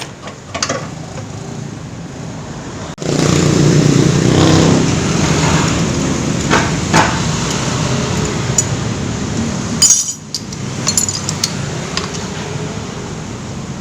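Small scooter engine running steadily, getting suddenly louder about three seconds in, with a few sharp metallic clinks near the ten-second mark.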